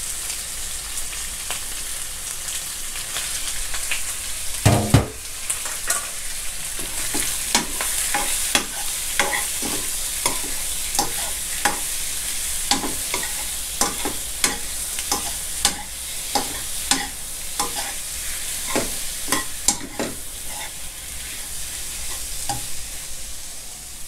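Raw sea shrimp sizzling in hot lard and garlic in a stone-coated wok, with a metal ladle clacking and scraping against the pan as they are stirred. There is a louder knock about five seconds in.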